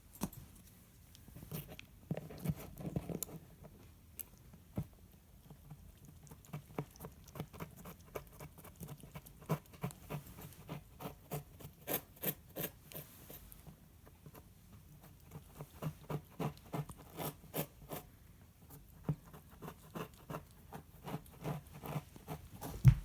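A cat licking: quick runs of small wet clicks, about three a second, with short pauses between runs and one louder thump near the end.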